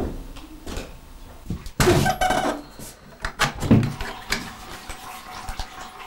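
A door being opened and handled: a series of clunks and knocks, the loudest cluster about two seconds in and two more sharp bumps a little past the middle.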